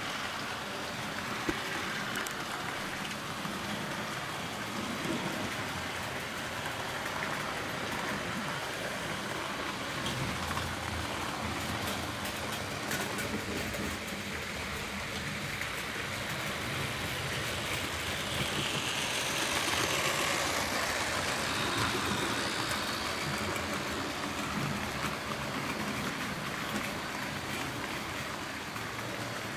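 Model train running on layout track: a steady rolling rattle of wheels over rail joints, swelling slightly about two-thirds of the way in as a faint motor whine rises and falls.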